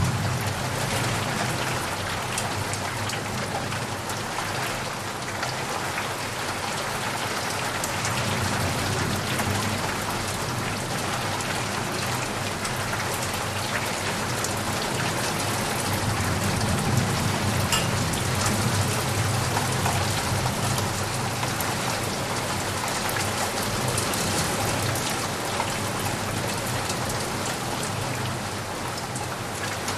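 Heavy rain falling steadily on leaves and puddles, a dense hiss with many separate drop hits. A low rumble swells near the start and again around the middle.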